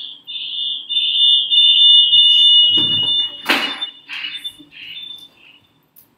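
Audio feedback howl on an online call: a loud, high-pitched whistle of two close tones that holds for about four seconds, with a short clatter about three and a half seconds in, then breaks up and dies away.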